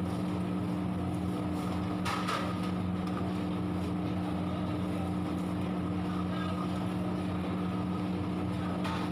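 Steady mechanical hum of kitchen equipment with a constant low drone. A metal ladle stirring thick curry in a large kadhai scrapes the pan about two seconds in and again near the end.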